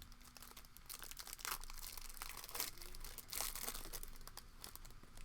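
Trading-card pack wrapper being torn open and crinkled by hand, in irregular crackly rustles.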